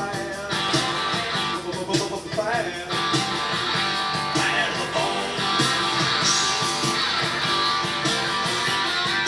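Rock and roll music with guitar and a steady beat.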